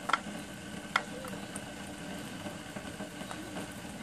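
A West Highland White Terrier eating from a metal-lined bowl, with two sharp clicks against the bowl near the start and about a second in, then faint small ticks over a steady background hum.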